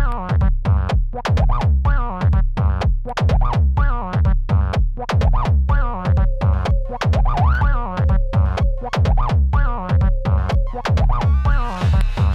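Electronic drum-machine jam: a Korg Volca Kick plays a steady kick-drum beat under a wavering acid bass line from a Korg Volca NuBass and noise percussion from a SOMA RoAT, run through Korg NTS-1 effects. A steady held tone comes in about halfway and stops shortly before the end, and a hiss swells in at the very end.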